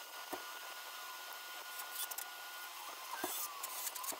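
Light handling noise as a 2x4 pine apron and a cordless drill are set against a table leg: faint rustling and three soft knocks, one shortly after the start and two near the end. The drill motor does not run.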